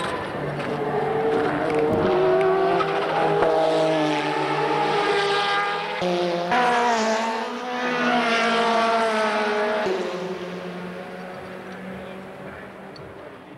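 Group C prototype race cars at full throttle passing one after another through a series of bends, engine pitch stepping up and down with gear changes, then fading away near the end.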